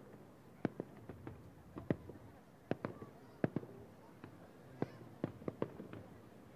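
Aerial fireworks shells bursting about a kilometre away: a rapid, irregular series of sharp bangs, over a dozen in a few seconds.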